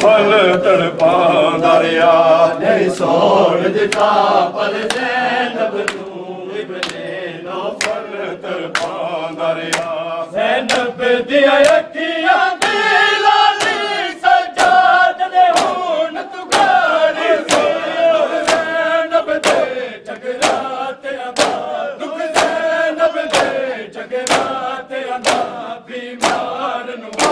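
A group of men chanting a noha in unison while beating their chests in matam, the hand slaps landing in a steady rhythm about one and a half times a second.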